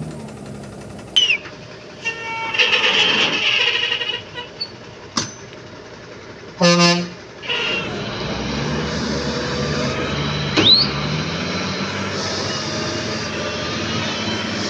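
Heavy truck's diesel engine running under load as the loaded rig works through deep mud, with a horn blast of about half a second about halfway through and a couple of short high whistles.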